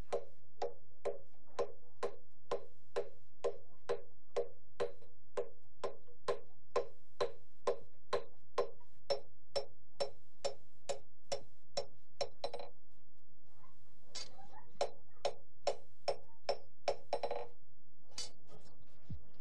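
Blacksmith's hammer striking a hot iron Husa knife blade on a small anvil: an even run of ringing metallic blows, a little over two a second. They pause briefly about two-thirds of the way through, then a few more come before they stop near the end.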